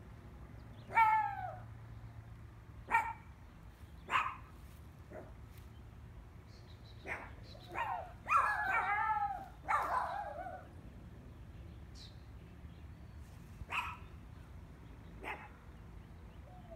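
A pet dog yelping and whining, worked up over a rabbit: short high calls that fall in pitch, scattered singly, with a quick run of overlapping yelps about eight to ten seconds in.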